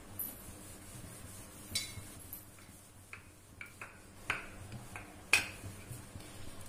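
Wooden rolling pin rolling out a thin sheet of maida dough on a worktop: a quiet rubbing with light irregular taps and clicks as the pin knocks the surface, the sharpest knock a little over five seconds in.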